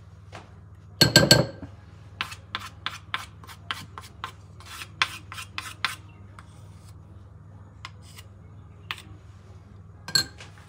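Wooden spoon scraping and knocking against an aluminium frying pan as it presses and stirs a crumbly flour-and-fat halva mixture. A heavier scrape comes about a second in, then a run of sharp clicks for about four seconds, with a few more spaced out near the end. A low steady hum runs underneath.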